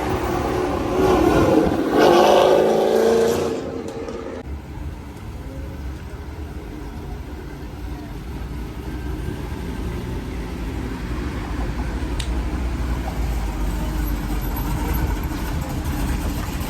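Motor vehicle engine running: louder for the first four seconds, then dropping to a steady low rumble that slowly builds.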